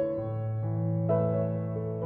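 Background music: soft piano playing slow, sustained notes.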